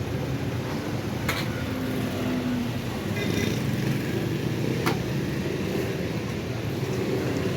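Roadside street ambience with steady traffic noise and two sharp clicks or knocks, one a little over a second in and one about five seconds in.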